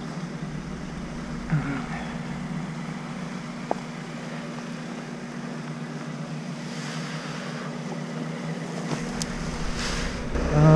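Off-road vehicle engine idling steadily, with a few faint knocks as someone walks through mud.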